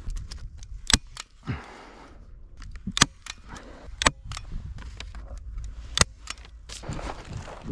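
Four sharp clicks, spaced one to two seconds apart, with rustling and scuffing on dry grass and dirt in between, as things are handled at the target board.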